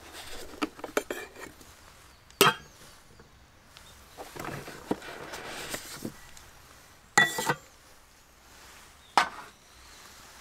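Camping cook-set cups and pot being handled out of a hard case: light clicks and rustling, with three louder knocks of cups set down or clacking together, about two, seven and nine seconds in, the middle one ringing briefly.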